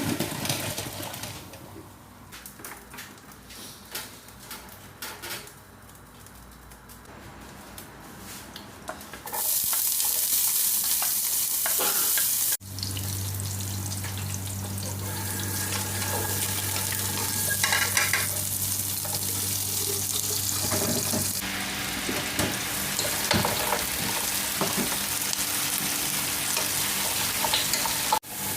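Kitchen cooking sounds across several cut clips: a few light utensil clinks, then a loud steady hiss of water and a pot hissing on the heat, with scattered stirring clicks. The beef has been boiled and its water is being drained.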